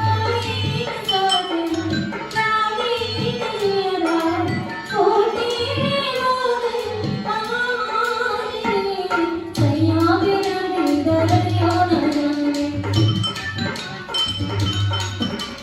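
Rajasthani folk music: a singing voice carrying a wavering melody over low hand-drum strokes and sharp percussive clicks.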